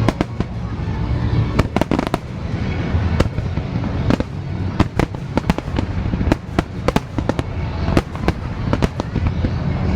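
Aerial fireworks display: a rapid, irregular run of sharp shell bursts, several a second at times, over a steady low rumble.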